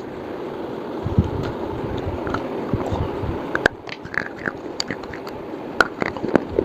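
A person biting and chewing a slate bar, with sharp crunching cracks and gritty chewing, over a steady background hiss.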